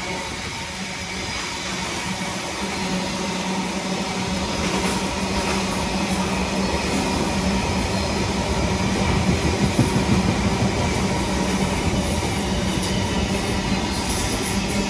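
Freight train of flat wagons loaded with rails rolling past at speed, a steady loud wheel-on-rail noise. Near the end the drone of the rear locomotive, a Colas Rail Class 70 diesel, builds as it approaches.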